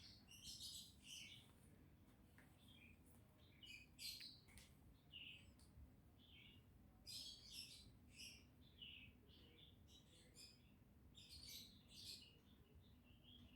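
Faint bird chirps: many short, high calls scattered throughout, over quiet room tone.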